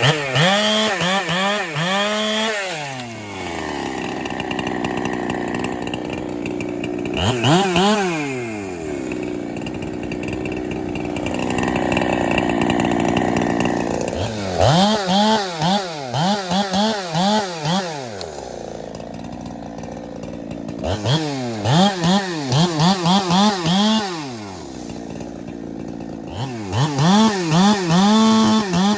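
Ported Holtzfforma 372, a Husqvarna 372 clone two-stroke chainsaw with a 28-inch bar, cutting maple during break-in. Steady stretches of running in the cut alternate several times with spells of high revving, the pitch warbling up and down, each falling away after a second or two.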